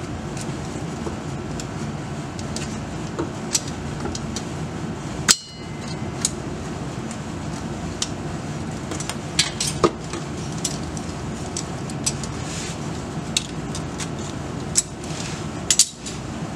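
Irregular sharp clicks and clinks, loudest about five seconds in, as a knife cuts around the rubber of an old driveshaft center support bearing carrier and knocks against its metal housing, over a steady low hum.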